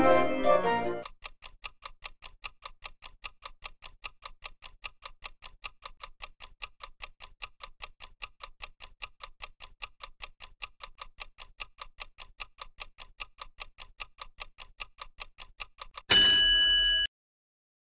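Countdown timer sound effect: a clock ticking rapidly and evenly after a short keyboard jingle fades out about a second in. Near the end the ticking gives way to a bright ringing alarm tone, about a second long, that cuts off suddenly.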